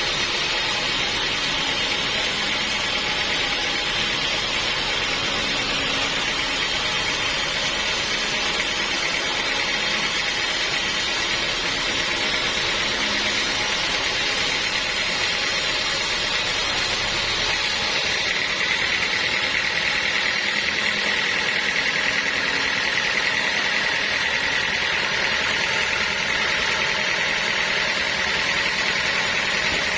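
Sawmill band saw running steadily through a large log, a continuous mechanical whine and rasp. About two-thirds of the way in, a high whine strengthens.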